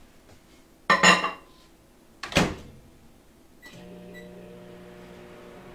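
Over-the-range microwave oven being started: a sharp clatter about a second in, the door shut with a knock, two keypad beeps, then the oven starts running with a steady low hum.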